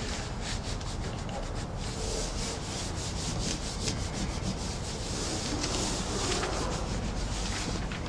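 Hands rubbing and smoothing a RESISTO self-adhered (peel-and-stick) sill membrane down onto the window sill, a run of quick, repeated swishing strokes.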